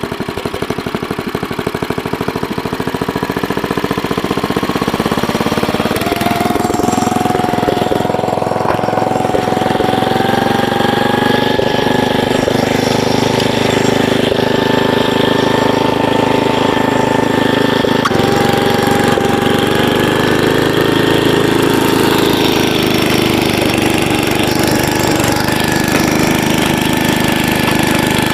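Troy-Bilt Horse tiller's 8 hp Briggs & Stratton single-cylinder engine running as it tills garden soil. Its pitch rises about six seconds in and then holds steady, with small dips as the load changes.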